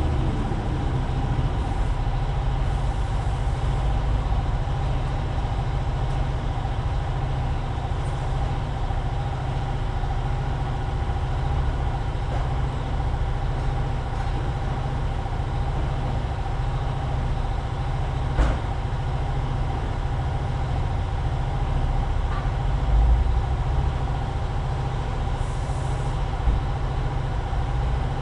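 Steady low machinery drone with a constant hum, one sharp click about 18 seconds in.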